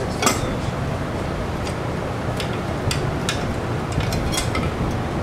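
Hand tools clicking against an aircraft engine's metal fittings: a few sharp, irregular clicks over a steady low background hum.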